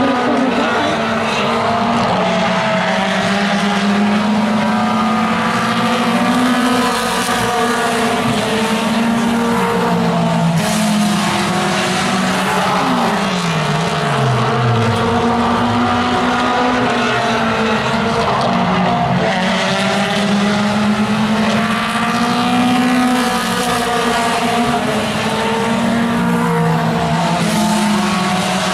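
Mini stock race cars' four-cylinder engines running hard on a short oval, several engine notes rising and falling as the cars lift and accelerate through the turns. About thirteen seconds in, one note slides sharply down in pitch.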